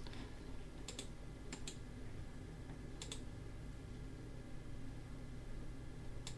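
A few scattered clicks of a computer keyboard and mouse, mostly in close pairs, over a faint steady low hum.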